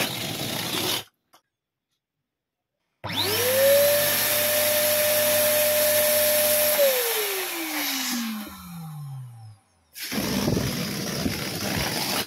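An electric balloon pump starts with a rising whine and runs steadily for about four seconds, filling a latex balloon. It is then switched off and winds down with a long falling whine. Before it, about the first second, and again for the last two seconds or so, a released balloon deflates with a loud rush of escaping air.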